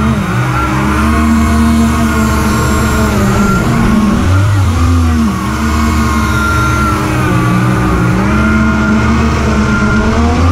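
Electric motors of a large RC hovercraft running. The lift fan gives a steady hum, while the two thrust motors with 11x10 Master Airscrew propellers whine, rising and falling in pitch over and over as the throttle is worked.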